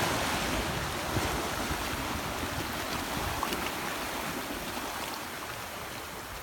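Shallow ocean water sloshing and washing, an even rushing noise that slowly grows quieter.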